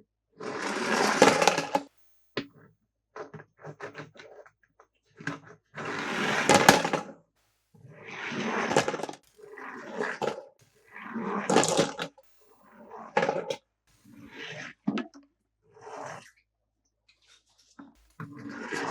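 Toys and packaging being handled: repeated bursts of rustling and scraping, each up to about a second and a half long, with sharp clicks in between.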